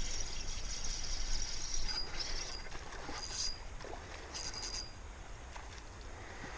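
Daiwa Shinobi spinning reel working as a hooked trout is played, giving three short high-pitched buzzes as line goes out, over low steady river flow.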